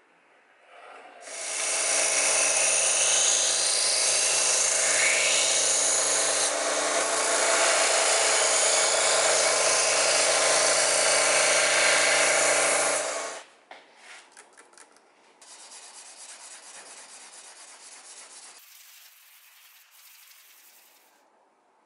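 Electric grinder running with a steady hum while it grinds the steel of a saw-blade knife blank, for about twelve seconds, then cutting off. A few clicks follow, then softer rubbing strokes of hand-filing or sanding on the clamped blade.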